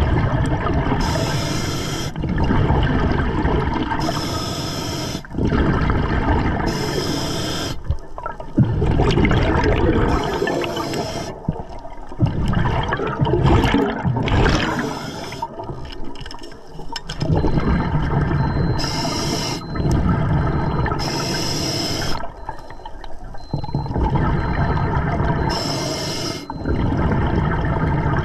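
Scuba diver breathing through an Atomic regulator underwater. There are short hissing inhalations, several of them spaced a few seconds apart, with bubbling exhalations between.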